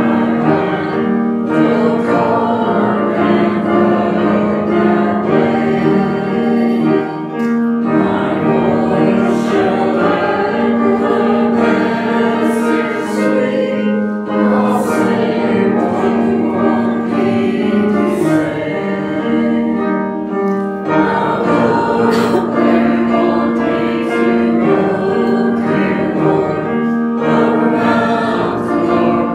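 Church choir singing a hymn-like piece in phrases, with sustained keyboard accompaniment under the voices.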